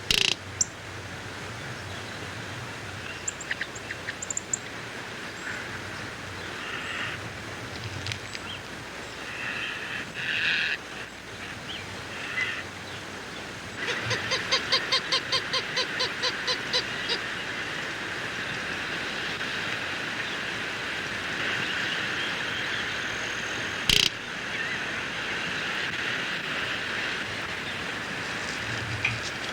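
Outdoor field recording with a steady hiss. Scattered short bird calls sound over it, and about halfway through comes a quick run of about a dozen repeated calls, roughly four a second. A sharp click sounds near the start and another late on.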